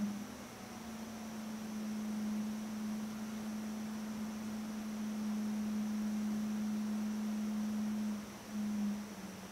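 A steady, pure low hum with a faint high whine above it; the hum wavers and dips briefly near the end.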